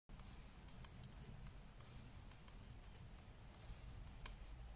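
Faint, irregular clicking of metal knitting needles as stitches are purled, about ten clicks with one louder click near the end, over a low room hum.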